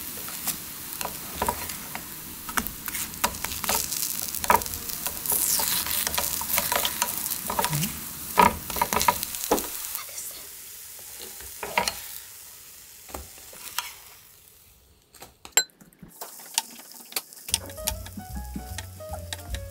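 Grated-pumpkin pancakes sizzling in oil in a frying pan, with taps and scrapes of a wooden spatula pressing them down, the sizzle coming from moisture squeezed out of the batter. The sizzling thins out after about ten seconds and fades almost to nothing, then a few clicks, and background music comes in near the end.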